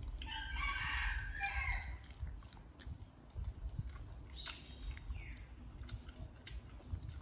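Chewing and small mouth clicks of fruit being eaten. In the first two seconds a short, high-pitched animal call in several parts sounds over them.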